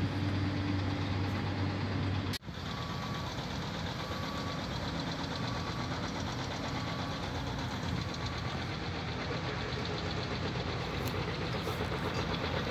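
A construction vehicle's engine runs steadily throughout. The sound drops out for an instant about two seconds in. After that, a reversing alarm beeps about once every second and a bit, for several seconds, over the engine.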